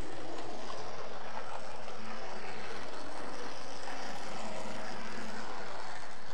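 00 gauge model train running along the track: a steady whirring rumble of motor and wheels.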